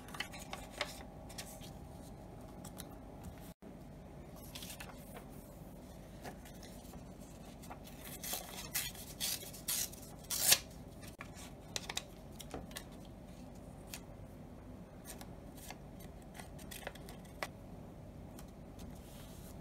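Paper being handled and rustled on a cutting mat, with small scattered crinkles and a run of louder, crisp paper strokes about eight to ten seconds in.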